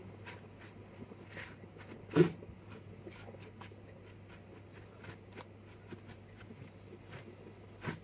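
Faint clicks and scrapes of a laptop motherboard being shifted by hand on a workbench under a microscope, over a steady low hum, with one louder knock about two seconds in.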